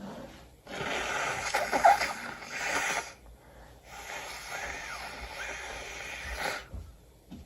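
A person breathing and snorting noisily through the nose in two long stretches, the first louder with a sharp peak partway through.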